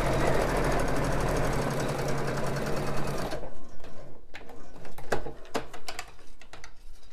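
Juki sewing machine running a straight stitch with a fast, even stitching rhythm, stopping about three seconds in; a few light clicks and rustles follow.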